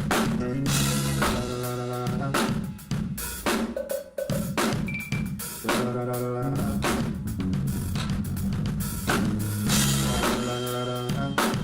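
Live jazz-soul band playing an instrumental groove: drum kit with snare and bass drum hits keeping a steady beat under bass and keyboard chords.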